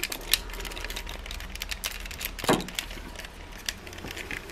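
Small plastic parts of a transforming toy robot figure clicking and rattling as they are handled and moved, with one louder short sound about halfway through.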